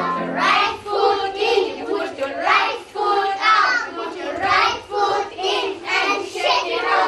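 A group of young children singing an action song together in short rhythmic phrases, about two a second, without accompaniment.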